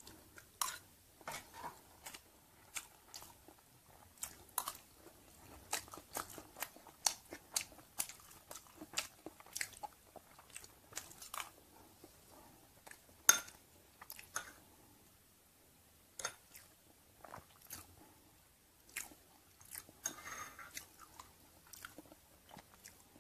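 Close-miked chewing and crunching of mouthfuls of stir-fried chicken organs and rice: irregular wet clicks and crackles, several a second. One sharper, louder click comes about 13 seconds in.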